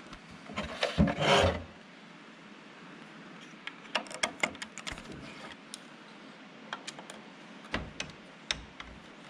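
Konica Minolta 1070 fuser unit being handled and split apart: a loud scraping rub of its parts about a second in, then scattered clicks and knocks of metal and plastic parts.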